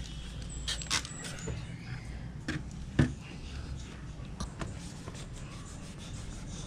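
Hand trigger spray bottle squirting soapy water onto a motorcycle's plastic side fairing in several short sprays, with one louder knock about three seconds in.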